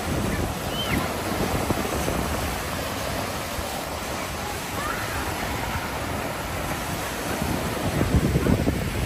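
Lake Michigan waves washing onto the beach, with wind buffeting the microphone; a stronger gust rumbles near the end.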